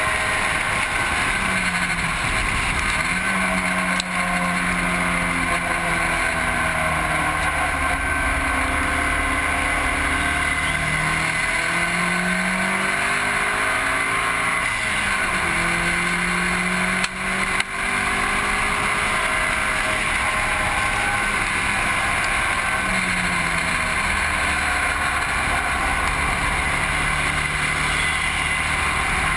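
A car's engine driven hard around a race track, its pitch climbing and dropping again and again through gear changes and lifts for corners. It sits under heavy steady wind and road noise from a camera mounted low near the road surface.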